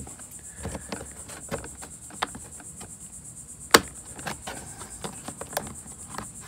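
Crickets chirping steadily in the background, with scattered light clicks and taps and one sharp click a little under four seconds in.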